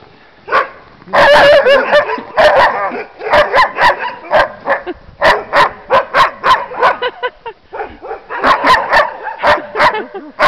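A team of harnessed sled dogs (huskies) barking and yipping together: several dogs overlap about a second in, then quick repeated barks follow, a few a second, with a short lull near the end.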